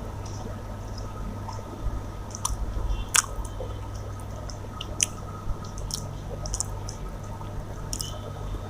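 A person chewing food with wet mouth clicks and smacks scattered through, over a steady low hum.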